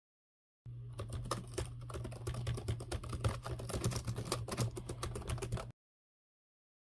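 Fast typing on a computer keyboard: a dense, irregular run of key clicks that starts abruptly about half a second in and stops abruptly about five seconds later, with a low steady hum under it.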